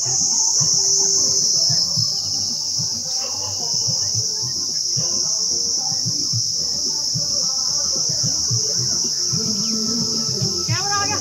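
Steady, high-pitched drone of insects in the trees, over a jumble of indistinct voices.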